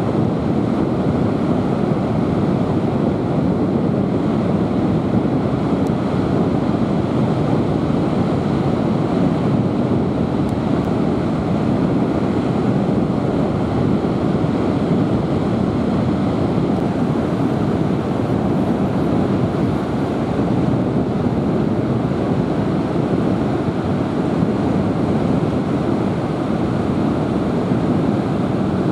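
Ocean surf breaking on the beach: a steady rushing noise that never lets up, mixed with wind on the microphone.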